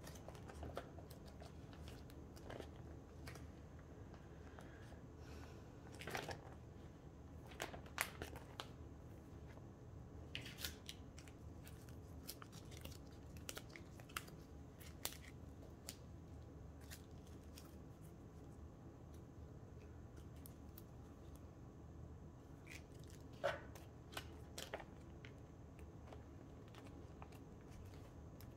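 Photocards and plastic binder sleeves being handled: soft scattered clicks and rustles a few seconds apart as cards are slid in and out of the pockets.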